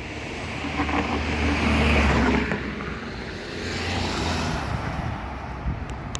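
A car passing close by on the street, its engine rumble and tyre noise swelling to a peak about two seconds in and fading, with a second, quieter pass a couple of seconds later.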